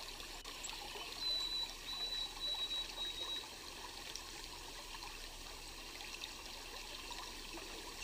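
Steady trickling of running water, with a thin, high whistled note held for about two seconds, broken into a few pieces, starting about a second in.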